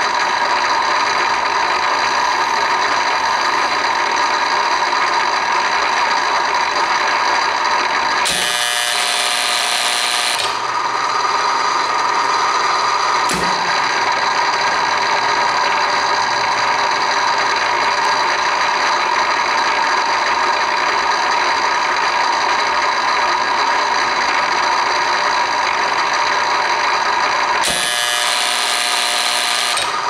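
Kingsbury 23 tapping unit running through its cycle: a steady machine whine of motor and gearing. There are two spells of about two seconds with a harsher, changed sound, about a third of the way in and near the end, and a single sharp click a little after the first spell.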